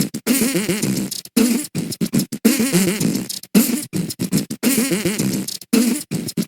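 Human beatboxing: rhythmic vocal percussion made of sharp mouth hits and buzzing, pitch-bending lip and throat sounds in quick bursts.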